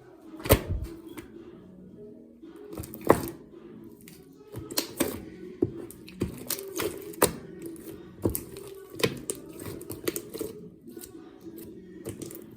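Slime being squeezed and poked, giving sharp pops and clicks at irregular intervals. The two loudest come about half a second in and about three seconds in, and a run of quicker pops fills the second half.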